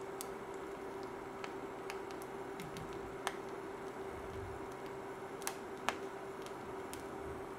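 Induction cooker running with a steady hum while an egg fries in the pan, crackling with scattered small clicks and a few louder pops, one about three seconds in and two close together near the end.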